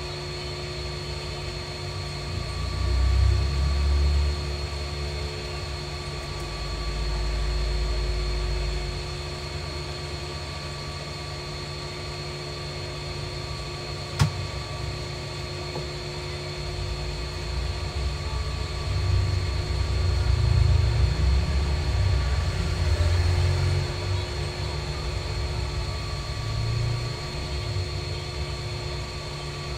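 Steady machine hum with a low rumble that swells and fades several times, and a single sharp click about a third of the way in.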